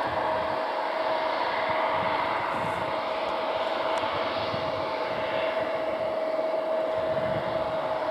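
Turbofan engines of a KLM Embraer regional jet running at low taxi power as it turns onto the runway. They give a steady whine with one held tone over an even rushing hiss.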